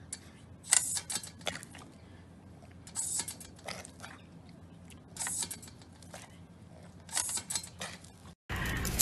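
A puppy snapping and biting at spurts of water from a paw-pad step-on dog fountain, in four short crackly bursts a second or two apart. Near the end the sound cuts out and a louder, steady noise takes over.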